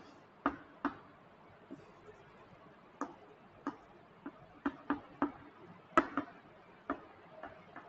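Chalk writing on a blackboard: a string of short, irregular taps and clicks as the chalk strikes and strokes the board.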